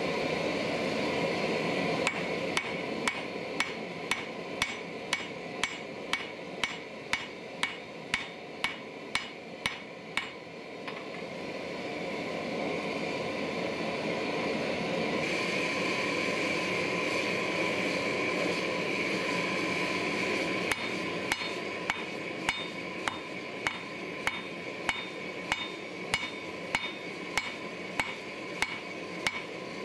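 Hand hammer striking a glowing laminated san mai steel billet on an anvil, about two blows a second, in two runs. Between the runs the propane forge's steady roar comes to the fore, while the billet is back in the fire.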